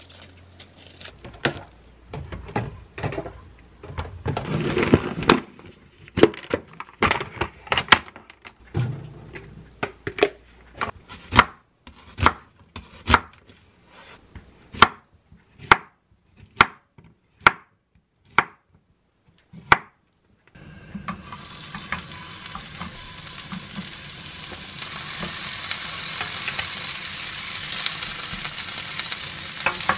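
Lettuce leaves rustling, then a kitchen knife cutting onion and zucchini on a wooden cutting board in a run of sharp, separate strikes about one or two a second. About two-thirds of the way in, beef tenderloin and zucchini slices start sizzling in a hot frying pan, a steady hiss that grows louder.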